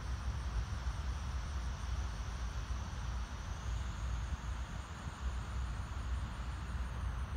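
Outdoor ambience with no distinct event: a steady low rumble and an even hiss, under a continuous thin high-pitched whine that rises slightly in pitch about halfway through.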